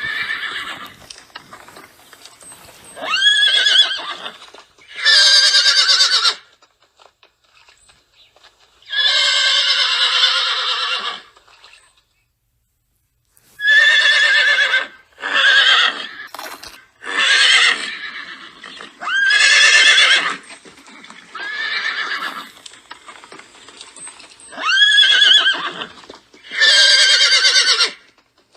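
Horses neighing and whinnying: a string of about ten separate calls, several sweeping sharply up and then falling in pitch, with short pauses between them and a longer silence about halfway through.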